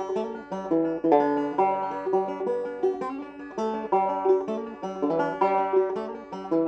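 Solo banjo playing a reel: a brisk, unbroken run of quick plucked notes ringing with a bright twang.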